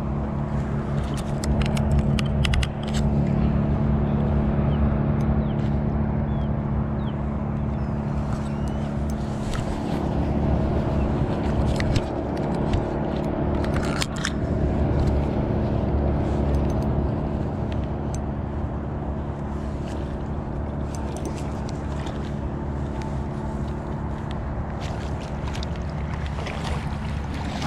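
A steady low mechanical hum, even in pitch throughout, with a few short splashes and clicks as a hooked trout is played at the surface and netted.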